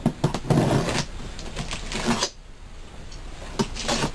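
Utility knife slitting the packing tape on a cardboard box, with cardboard scraping and rustling in short bursts and a few sharp clicks and knocks near the end as the flaps are handled.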